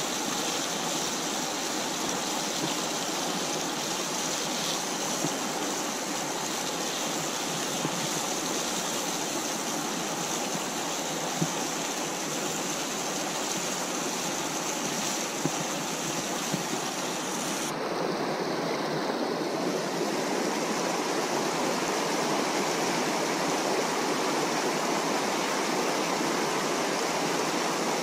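Steady rushing of a river's flowing water, with a sudden slight change in tone about two-thirds of the way through.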